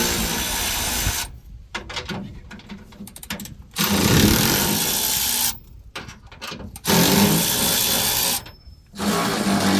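A handheld power tool running in four bursts of one to two seconds each, with clicks and rattles in the short pauses between them.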